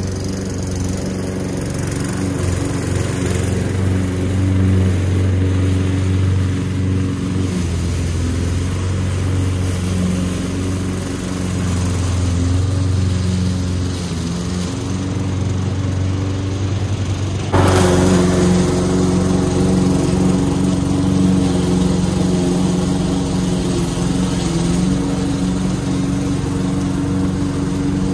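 Petrol grass-cutting machine's engine running steadily as grass is cut. About two-thirds of the way through its sound steps up suddenly and stays louder.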